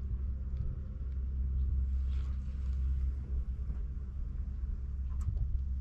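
Steady low rumble of wind buffeting the GoPro's microphone, with a few faint ticks.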